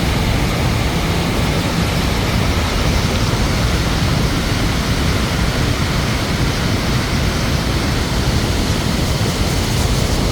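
River water rushing, a steady unbroken noise heaviest in the low end.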